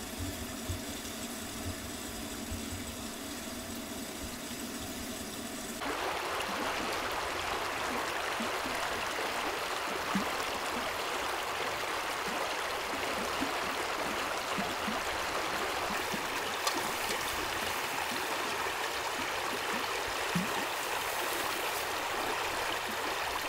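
Steady rushing of a flowing stream. For the first six or so seconds a quieter, steadier hum with faint tones lies under the water; then it cuts off abruptly and the full water sound takes over.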